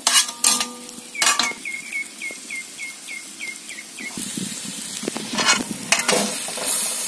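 A metal ladle clanks and scrapes against a wide metal kadai, stirring drumstick pieces frying in masala, over a light sizzle. A few sharp clanks come in the first second and a half, and the scraping stirs start again about four seconds in as grated coconut is mixed in.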